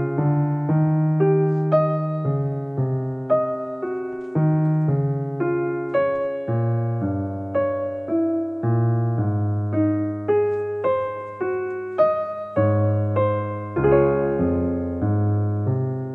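Background piano music: a slow, calm run of single struck notes over held bass notes.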